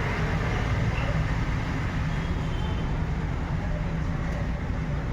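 A steady low mechanical rumble with a hiss above it, unchanging throughout.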